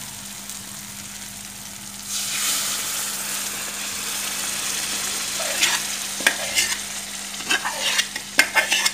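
Boiled arhar (toor) dal is poured into a hot metal kadai of fried tomato-onion masala and sizzles louder from about two seconds in. Later a steel ladle clinks and scrapes against the pot and pan several times as the last of the dal is scooped out.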